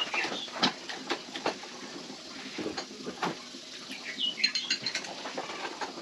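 Irregular light metallic clinks and taps of tools and parts being handled in a motorcycle workshop, with a few brief ringing clinks about four seconds in.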